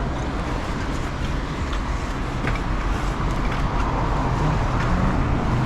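Steady rumble and hiss of wind and road noise on a bicycle being ridden, growing a little louder near the end.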